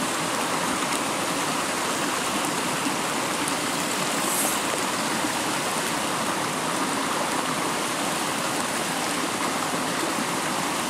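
Small woodland stream running: a steady, even rush of water.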